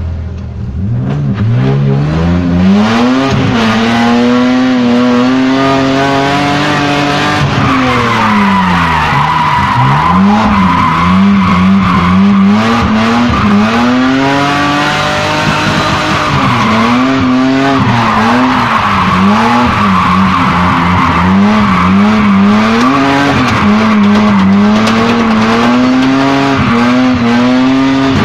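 Drift car's engine, heard from inside the cabin, revving hard and swinging up and down as the throttle is worked through a drift, climbing sharply in the first couple of seconds. From about eight seconds in the tyres squeal steadily over the engine.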